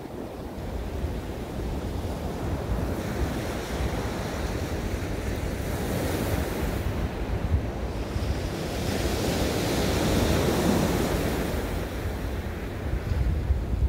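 Sea waves breaking and washing up a pebble beach, surging louder twice, with wind rumbling on the microphone.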